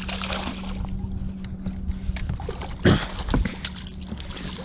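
A hooked bass thrashing and splashing at the water's surface beside a boat hull, with water sloshing, one louder thump about three seconds in, and a steady low hum underneath.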